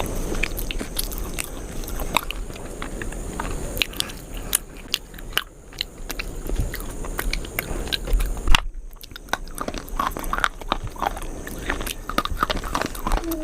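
A person biting and chewing something crisp close to the microphone: irregular sharp crunches and crackles, with a brief dropout about two-thirds of the way through.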